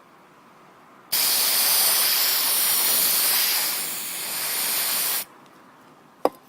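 A steady, loud hiss lasting about four seconds that starts and stops abruptly, followed near the end by a single sharp click.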